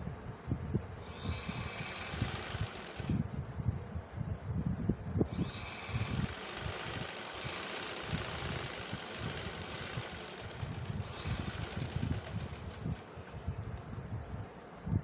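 Domestic sewing machine running, stitching a seam with a fast, steady rattle, then stopping near the end.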